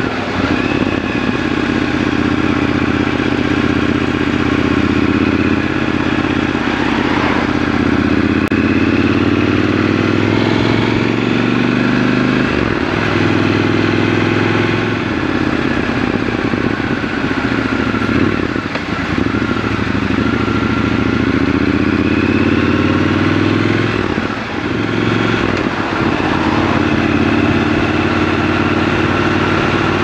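Triumph Scrambler 1200 XC's 1200 cc parallel-twin engine running while ridden, recorded from the rider's seat. The engine note climbs as the bike accelerates and drops back sharply about three times, at about twelve, eighteen and twenty-four seconds.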